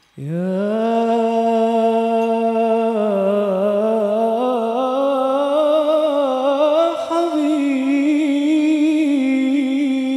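A male munshid singing one long, unaccompanied note in Arabic devotional style. The note wavers with vibrato and ornaments and rises a little in pitch past the middle.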